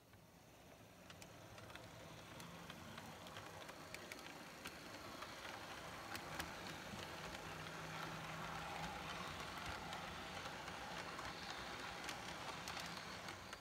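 Model train rolling past on the track: a steady rumble of wheels on rail with a low motor hum and many light clicks, growing louder over the first few seconds.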